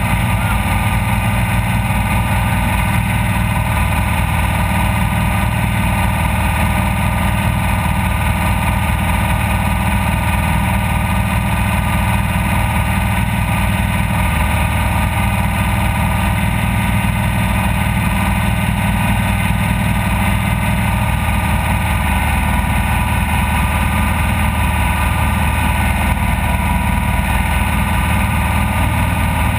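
Off-road race vehicle's engine running steadily at a fairly constant speed, with little change in pitch.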